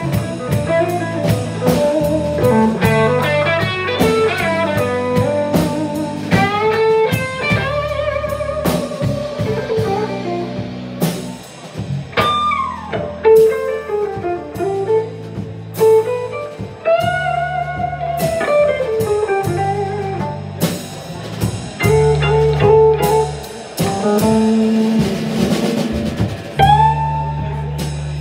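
Live blues band playing an instrumental break in a slow blues: electric guitar lead lines with bent notes over electric bass and a drum kit.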